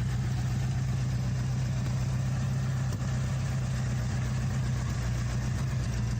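Ford 351 Cleveland V8 idling steadily, with an even low hum and no revving.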